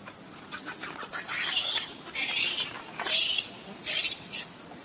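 Baby macaque screeching: five shrill, raspy cries in a row, each a quarter to half a second long.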